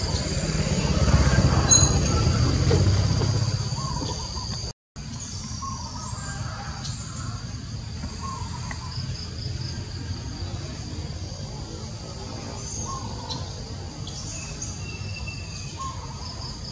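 Outdoor ambience: a steady high-pitched insect drone, with short chirps every second or two and a low rumble that is loudest in the first few seconds. The sound drops out briefly about five seconds in.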